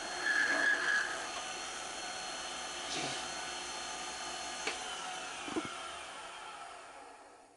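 Wood lathe running with a turning tool on a pen blank: a sharp high squeal of the cut about half a second in and a few knocks, then the lathe winding down near the end, its whine falling in pitch as it stops.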